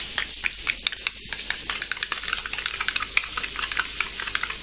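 A spoon stirring mayonnaise and mustard in a small glass bowl, with many quick, irregular clicks and scrapes. Behind it, breaded prawns deep-frying in oil crackle over a steady hiss.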